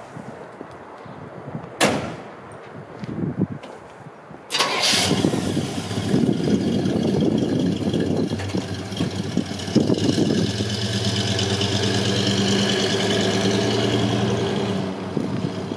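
A cab door shuts with a thud about two seconds in. About four and a half seconds in, the truck's 283 cubic-inch small-block V8 cranks and fires, runs loud, then settles into a steady run as the truck pulls away, dropping a little near the end.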